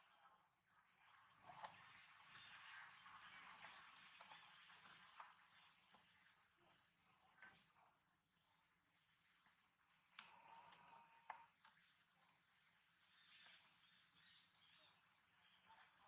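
Faint insect chirping: one high pulse repeating evenly, about four to five times a second, with a few soft clicks in between.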